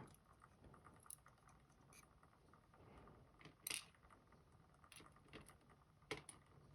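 Near silence broken by a few faint, scattered clicks and taps from tiny pins and drivers of a safety deposit box lock being handled as the lock is taken apart. The two strongest clicks come about three and a half seconds in and about a second before the end.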